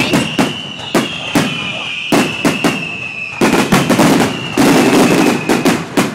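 Fireworks going off in quick succession, sharp bangs with a dense stretch of crackling near the end. Under them runs a long high whistle that slowly drops in pitch.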